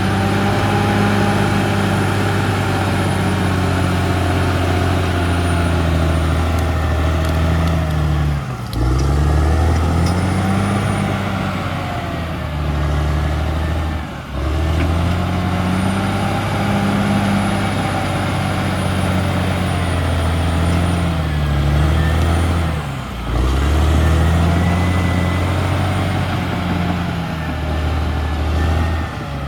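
CAT D6R XL bulldozer's diesel engine running hard under load. Its pitch sags and recovers about four times, a little before 9 s, 14 s, 23 s and 29 s in, as the load comes on and off. A faint high whine runs above it.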